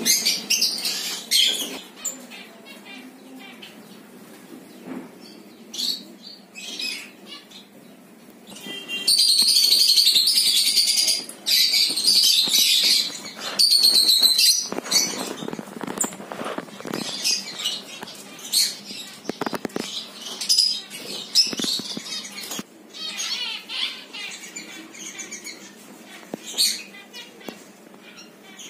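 A flock of peach-faced lovebirds chattering with short shrill chirps, swelling into two stretches of dense, loud screeching near the middle, with wings flapping now and then.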